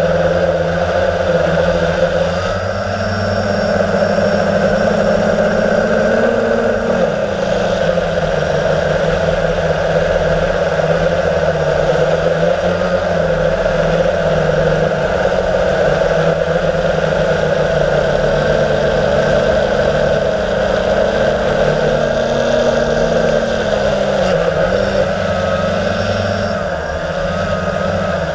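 Blade 350 QX quadcopter's four brushless electric motors and propellers buzzing steadily, heard up close from on board. The pitch dips and recovers briefly twice, about seven seconds in and again near the end, as the motor speeds change in flight.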